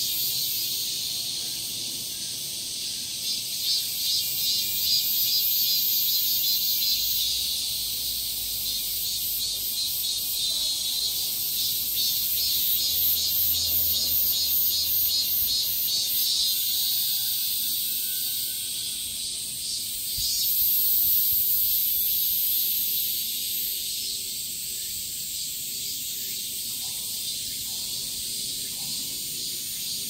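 Many cicadas calling together in the trees: a dense, steady, high-pitched buzzing chorus with a rapid pulsing in it. About twenty seconds in, an even higher hiss swells for a few seconds and fades.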